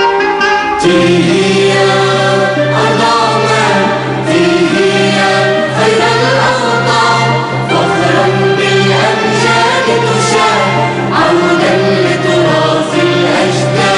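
Mixed choir singing an Arabic anthem over orchestral accompaniment. Sustained instrumental chords open the passage, and the choir comes in about a second in.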